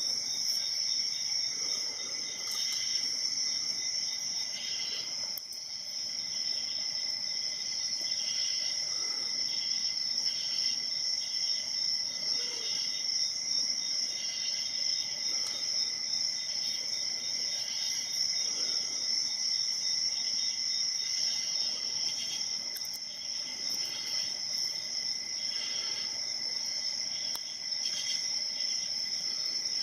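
Crickets chirping in a steady chorus: a continuous high-pitched trill with a fast, even pulse underneath.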